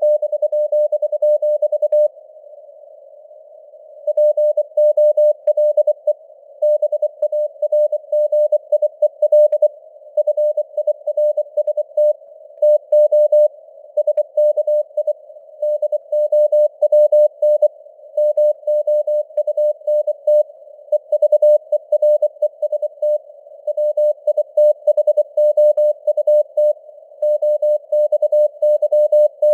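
Morse code (CW) sent at 24 words per minute: a single mid-pitched tone keyed on and off in dots and dashes, over a narrow band of simulated radio receiver hiss. The tone is held for about two seconds at the start and pauses for about two seconds before the keying resumes.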